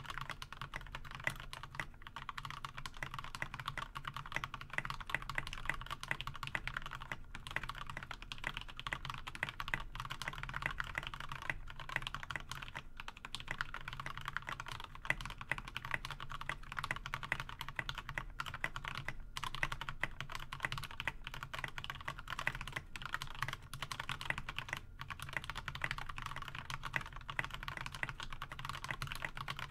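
Continuous typing on a GK61 mechanical keyboard with lubed Milky Gateron Yellow linear switches and Chocolatier keycaps: a fast, steady stream of keystroke clacks with a few brief pauses.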